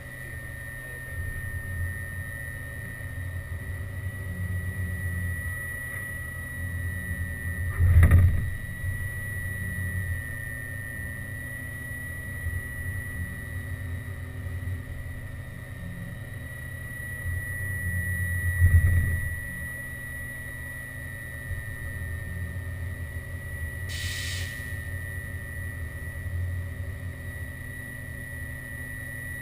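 Haas VF2 CNC vertical mill running: a steady high whine over a low machine hum, with two louder low surges about eleven seconds apart and a brief hiss later on.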